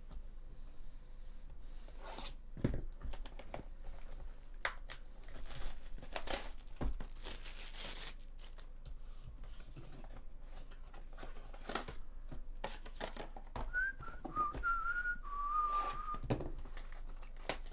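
Cardboard trading-card hobby box being handled and torn open: knocks, scrapes and tearing of cardboard and wrapper. Near the end, a few wavering whistled notes.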